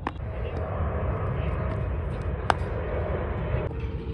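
A steady engine drone with a faint held tone that fades out near the end, and one sharp crack about two and a half seconds in.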